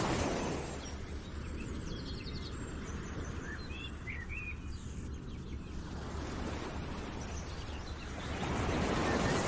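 Outdoor nature ambience: a broad rushing noise that swells near the start and again near the end, with a few short bird chirps in the middle.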